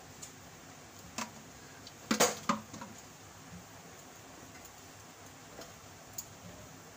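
A few light clicks and knocks from handling a plastic cooking-oil bottle and the gas stove, the loudest a quick cluster of knocks about two seconds in.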